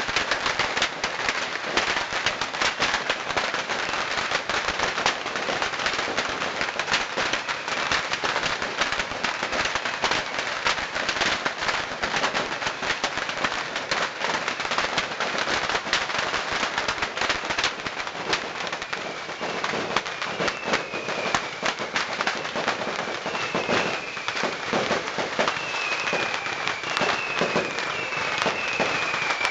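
Massed bottle rockets of the Yanshui beehive fireworks going off in a continuous dense crackle of rapid bangs. From about two-thirds of the way through, short falling whistles come one after another over the crackle.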